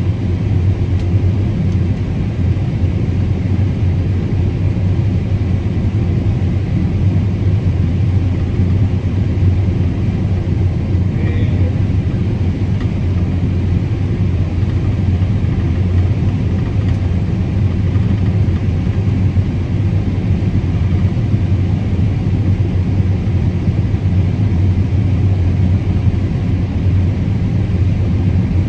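Combine harvester running steadily while harvesting corn, a continuous low rumble heard from inside the cab.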